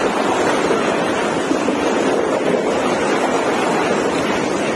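Steady rushing noise of a vehicle driving through a construction tunnel, engine and tyre noise with no breaks.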